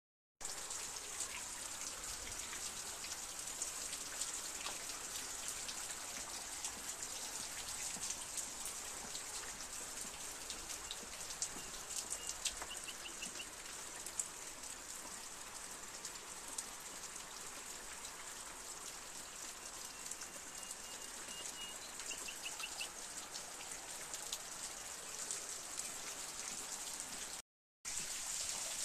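Hail and rain falling in a storm: a steady hiss dotted with many small ticks of hailstones striking. The sound drops out for a moment near the end.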